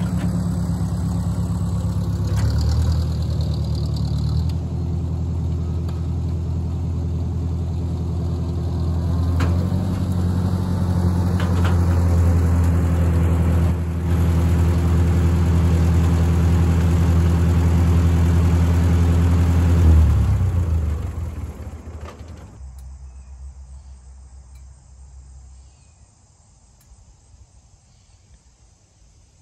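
1957 Ford 641 Workmaster tractor engine running steadily, its note shifting a few seconds in and again around ten seconds in. About twenty seconds in the engine sound dies away over a few seconds, leaving only a faint background.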